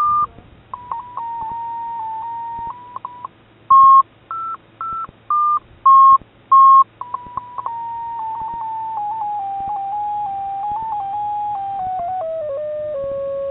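FrSky variometer audio tones: a string of short beeps whose pitch steps up and down, then, about halfway through, one continuous tone that slides steadily lower in pitch and begins to rise again near the end. In this kind of vario audio, beeping means the model is climbing and a steady falling tone means it is sinking.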